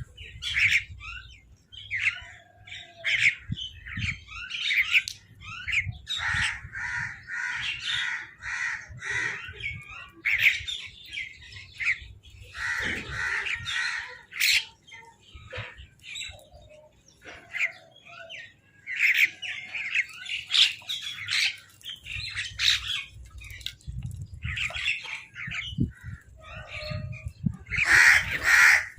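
Crows cawing over and over, short harsh caws from several birds, with a quick run of about three caws a second partway through and the loudest burst of calls near the end.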